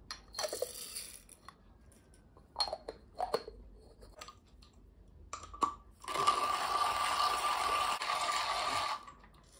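Coffee beans clattering into a Comandante C40 hand burr grinder, a few clicks as the grinder is handled, then about three seconds of hand grinding: the burrs crunching whole roasted beans with a steady rasping noise that stops abruptly near the end.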